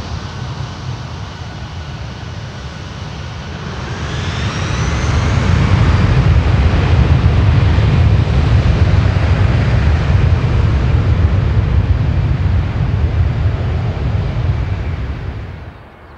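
Four CFM56 jet engines of an Airbus A340-300 spooling up to takeoff thrust: a rising whine about four seconds in, then a loud, steady engine rumble as the takeoff roll begins. The sound falls away sharply near the end.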